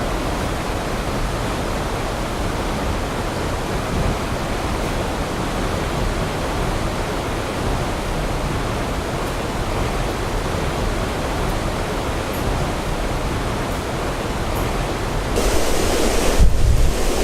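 Steady roar of a tall waterfall's falling water, turning louder about fifteen seconds in.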